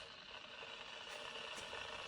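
Chefman 1.8-litre 1500 W electric kettle heating water, not yet boiling: a faint, steady hiss and rumble as the water warms.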